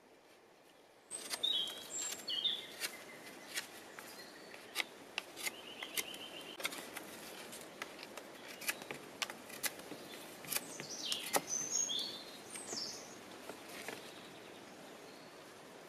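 Knife whittling green wooden sticks: a run of sharp clicks and cuts, starting about a second in. Birds chirp and trill in the background.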